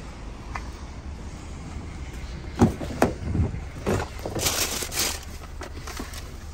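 Items being handled on a van seat: a few sharp knocks and clicks, then plastic packaging and paper bags rustling as a hand rummages through them, over a steady low background rumble.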